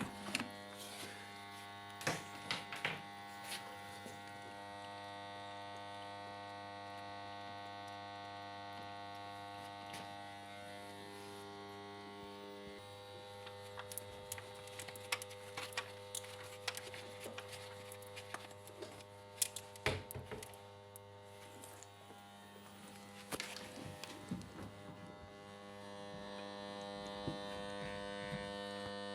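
Washing machine water inlet solenoid valves buzzing with a steady hum, the loud valve noise that is the fault being diagnosed. Scattered clicks and knocks sound over the hum, which dips about two-thirds of the way through and swells again near the end.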